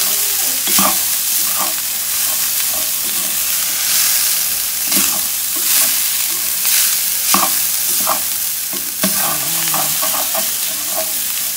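Leftover rice and fried garlic sizzling in oil in a stainless steel pan, with a wooden spoon scraping and knocking against the pan at irregular moments as the rice is stirred and tossed.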